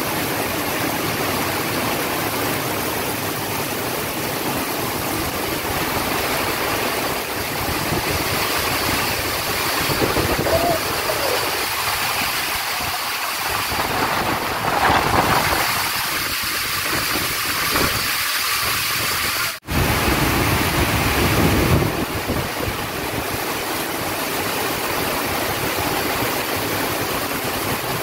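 Heavy rain pouring down in gusty wind, a steady loud rush of water splashing on cars and ground. It cuts out for an instant about two-thirds of the way through.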